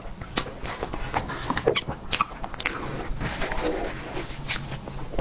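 Close-miked eating: biting and chewing, with many irregular wet mouth clicks and smacks.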